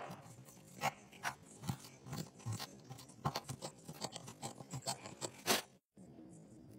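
Hand chisel paring wood from a bowtie inlay recess in hardwood: irregular quiet crunches and small clicks as the blade slices through the fibres.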